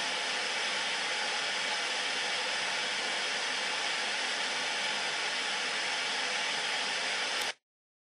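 Old CRT television tuned to no station, giving a steady static hiss, which cuts off suddenly near the end.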